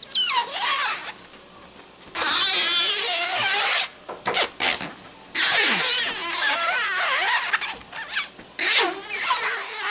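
Hands squishing and rubbing through chocolate-frosted cake in a glass baking dish, making wobbly, rude squeaking and squelching noises in four long bursts of a second or two each.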